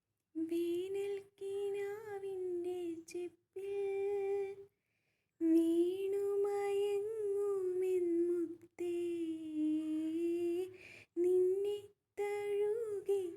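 A woman humming a slow melody without words, in long held notes, phrase after phrase with short breaks between.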